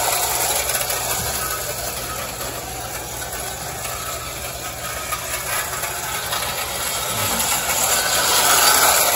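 Unique Art tin-lithographed O-gauge electric locomotive and tender running on tinplate track, its motor and gearing going steadily. The sound is louder while the train is close, fainter about halfway through as it circles away, and loudest again near the end as it comes back past.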